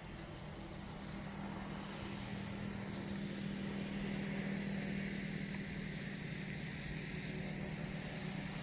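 A steady engine drone that swells slightly louder toward the middle and eases a little toward the end.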